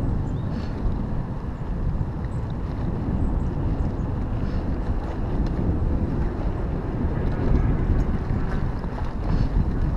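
Wind buffeting the microphone over the steady low rumble of a mountain bike rolling along a dirt singletrack, with a few faint rattles and clicks.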